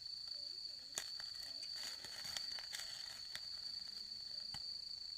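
Crickets chirring in one steady high note, with a few sharp clicks of camp cooking gear.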